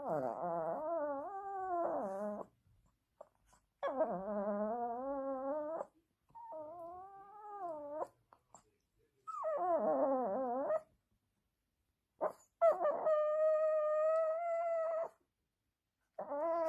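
A chihuahua making a run of long, wavering growl-whines, five in a row of about two seconds each with short pauses between; the last is a steadier, higher whine. It sounds over a toy that the other dog has.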